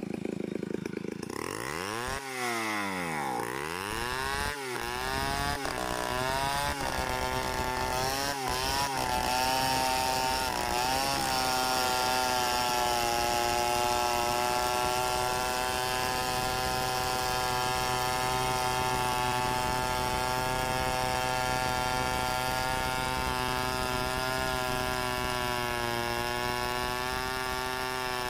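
Chainsaw revved up and down several times, then held at full throttle as it rips lengthwise along a squared log. The engine pitch stays steady under load and dips a little near the end.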